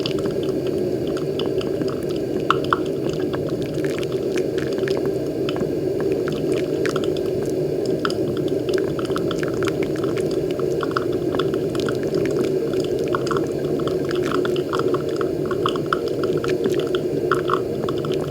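Moccamaster KBGV Select drip coffee maker brewing: hot water streams steadily from the outlet arm onto the wet coffee grounds, with many small pops and bubbling from the blooming coffee bed.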